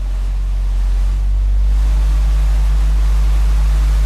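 Two 24-inch Sundown Audio ZV.5 subwoofers in one large ported box playing a loud, steady, very deep bass tone, with a rattling buzz from loose shop items and a sheet of chrome vinyl film shaken by the bass.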